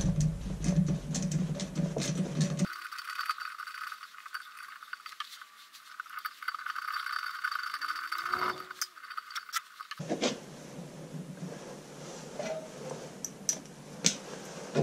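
Light metallic clicks and rattles of hand tools and small hardware being handled while wiring is removed from an air compressor's pressure switch. There are many short, irregular clicks, which thin out in the middle and pick up again near the end.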